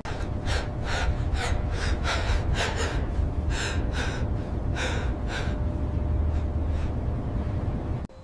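Quick, noisy breaths or sniffs, about two a second, that stop about five and a half seconds in, over a steady low rumble that cuts off near the end.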